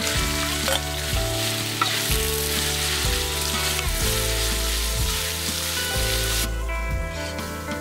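Julienned ginger sizzling in hot oil in a steel wok as it is tipped in and stirred with a metal spatula. The sizzle thins out about six and a half seconds in.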